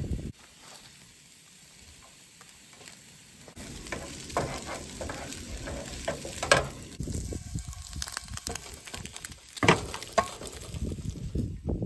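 Scrambled eggs and diced potatoes frying in a non-stick pan on a camp stove, stirred and scraped with a wooden spatula from about three and a half seconds in, with two sharp knocks of the spatula against the pan, the second near the end as the food is scraped out.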